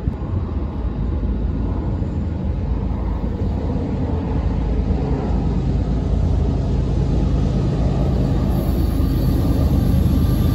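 Diesel freight locomotive approaching along the track, its engine's low rumble growing steadily louder.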